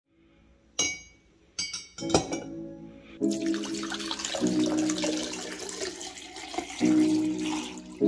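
A metal heater element clinks against a glass beer mug a few times, with short bright rings. About three seconds in, a steady hiss of water pouring into the mug starts under background music with held notes.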